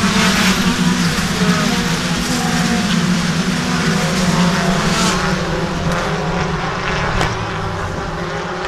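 A pack of touring cars passing at racing speed, many engines sounding together. The strong low engine note eases off about five seconds in and the sound slowly fades as the pack moves away.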